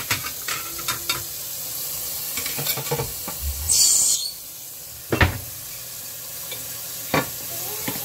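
Tap water running in a steady stream onto fruit in a stainless-steel sink, with a few sharp knocks and clatters, the loudest about five seconds in.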